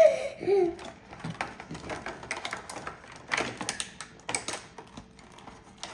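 Clear plastic toy packaging being handled, a run of irregular light clicks and crackles.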